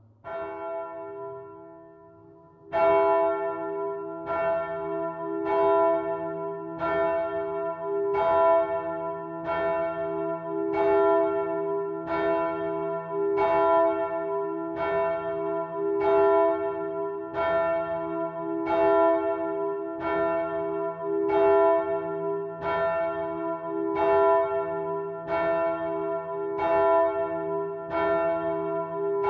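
A single swinging bronze church bell, cast by Michiels of Tournai in 1957, being rung. One stroke sounds just after the start, then from about three seconds in the clapper strikes steadily about once a second, and each stroke rings on into the next.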